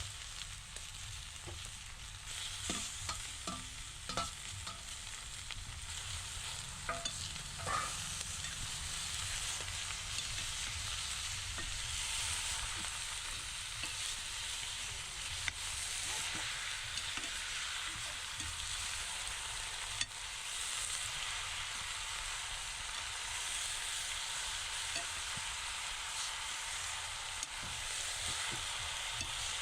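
Chicken curry frying and sizzling in hot oil in a pan while it is stirred with a metal ladle. There are several sharp clinks of the ladle against the pan between about two and eight seconds in.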